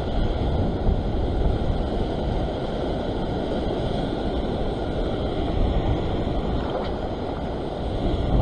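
Ocean surf churning and washing around rocks, with steady wind rumble on the microphone.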